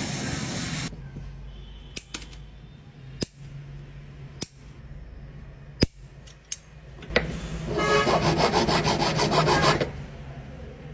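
A hot metal piece hisses as it is quenched in water, cutting off about a second in, followed by a few scattered sharp clicks of the piece and tools being handled. Near the end come about three seconds of quick, rhythmic rasping strokes as the small metal piece is rubbed back and forth against an abrasive to smooth it.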